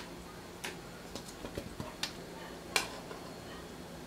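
Metal kitchen tongs clicking and tapping against a wok and an aluminium basin while pieces of boiled chicken are lifted across: a scatter of short, sharp ticks at uneven intervals, the loudest near three seconds in.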